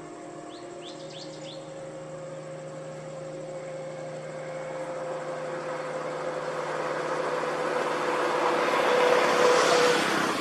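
A road vehicle approaching, its engine and tyre noise growing steadily louder with a steady engine whine, loudest near the end before it fades.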